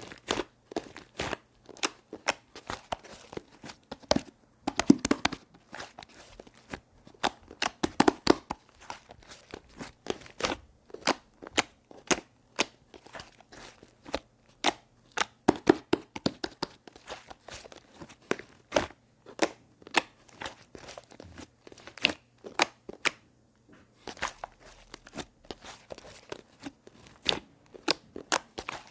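Clay slime being squeezed and pressed by hand, giving off irregular sharp clicks and pops, several a second, like a chick's peeping.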